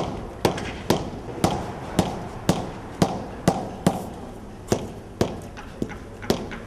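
A hand hammer striking repeatedly at a paving worksite: sharp knocks at about two blows a second, in an even working rhythm with a brief pause around the middle.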